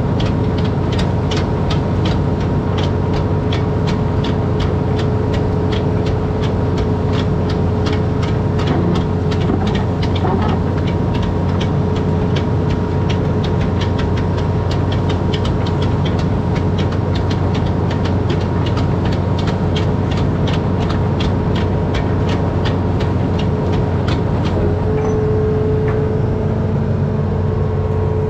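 Amphibious excavator's diesel engine running steadily, heard from the operator's cab, with a rapid regular clicking of about three a second that dies away near the end as a steady whine grows louder.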